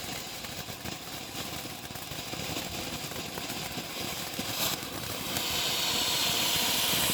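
A single faint pop about four and a half seconds in, then the steady hiss of a firework spraying sparks like a fountain, which builds and holds to the end.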